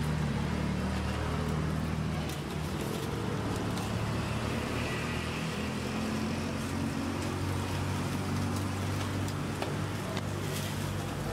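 Steady low mechanical rumble with a shifting hum, over which come occasional light clicks and rustles of metal tongs and plastic bags as food is packed.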